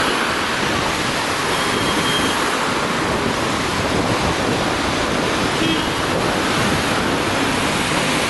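A steady, even rushing noise with no siren.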